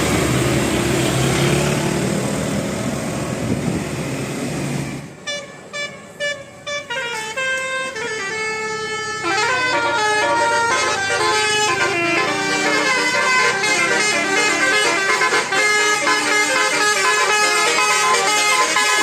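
Engine and road noise from a passing vehicle, then from about five seconds in a Basuri 'telolet' multi-tone bus horn plays a melody of short stepping notes that grows fuller and denser about halfway through.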